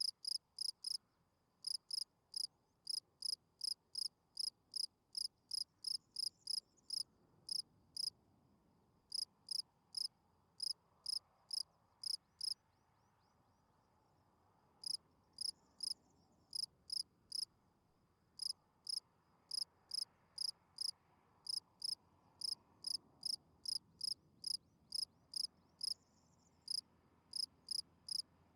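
Field cricket chirping: short, clear, high chirps repeated about two to three times a second, broken by a few pauses of one to two seconds.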